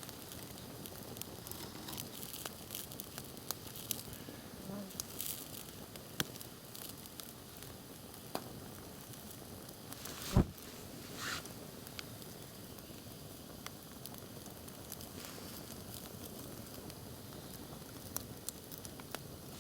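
Campfire crackling: a faint steady hiss with irregular small snaps, one much louder pop about ten seconds in, followed by a short hiss.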